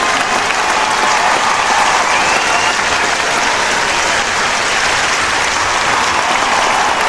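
Large crowd applauding steadily, with voices cheering within the clapping.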